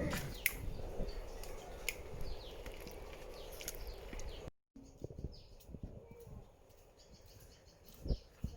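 Small birds chirping in short, falling calls, repeated again and again over a low rural background. The sound drops out for a moment about halfway through, and a low thump comes near the end.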